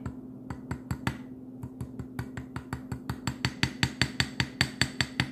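Small hammer's metal face tapping a revolver front sight blade down into its channel on the barrel to seat it flush: a run of light, sharp metal-on-metal taps. The taps are sparse at first, then from about halfway come quicker and louder, about five a second.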